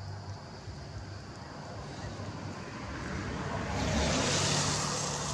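Vehicle passing by: a steady low hum with a rushing noise that swells about three seconds in and eases near the end.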